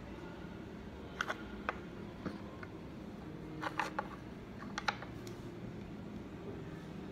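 Dominoes clicking and tapping on a wooden tabletop as they are picked up, flipped and set down, a few sharp knocks scattered through, some in quick pairs, over a steady low hum.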